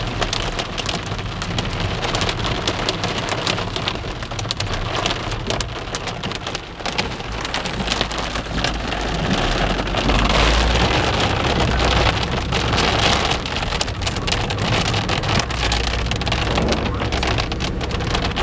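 Heavy rain mixed with hailstones pelting a car's windscreen and roof, heard from inside the car: a dense, steady patter of sharp hits over a low rumble, which swells a little about ten seconds in.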